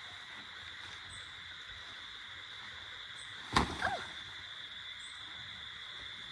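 Steady high-pitched drone of evening insects. A little past halfway comes one sharp snap, the loudest sound, followed by a brief squeak.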